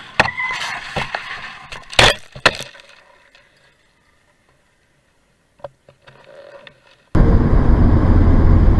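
A few sharp cracks and knocks in the first three seconds, the loudest about two seconds in, then near quiet. About seven seconds in, a car's steady, loud road and engine noise sets in as it drives along a highway, heard from its dashcam.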